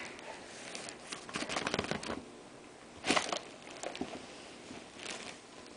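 Crumpled wrapping paper and a plastic bag crinkling and rustling as a cat noses and mouths the paper, in short bursts, the loudest about three seconds in.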